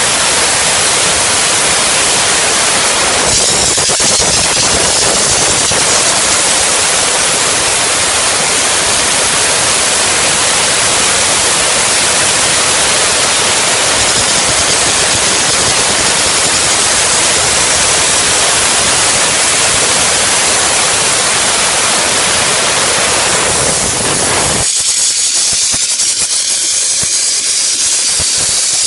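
Steam gun of an LPG-fired mobile steam car wash machine hissing loudly and steadily as it blasts steam onto a car's body panel. About 25 seconds in, the low part of the sound drops away and it thins out.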